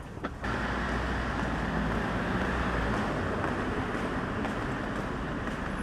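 Steady rumble of a car driving, road and engine noise, starting abruptly about half a second in.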